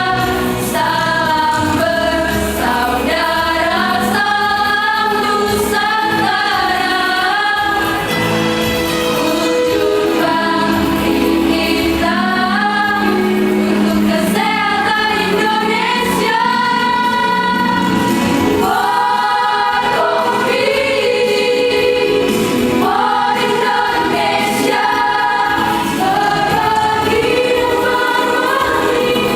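Choir singing a song, several voices sounding together without a break.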